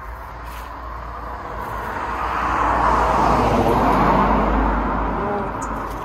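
A car driving past on the street: tyre and engine noise swelling to a peak about three to four seconds in, then fading away.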